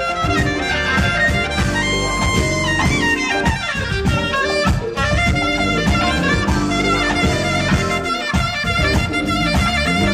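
Saxophone playing a jazz melody over a full band backing with a steady beat.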